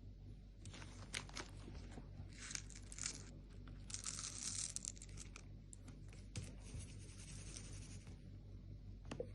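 Slime being handled by hand: a soft run of small sticky clicks and pops, with three longer crackling stretches as it is pulled and squished, the loudest about four seconds in.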